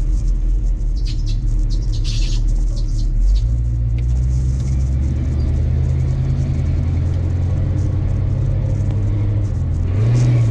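Car engine and road rumble heard from inside the cabin while driving. The engine note steps up about three seconds in and again near the end, with a few light clicks and rattles in the first few seconds.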